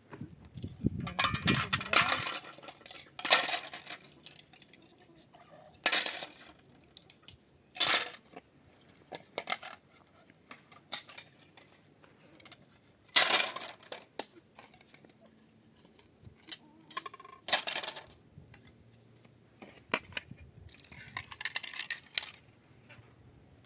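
Clinking and clattering of hard objects knocking together, in short separate bouts every few seconds.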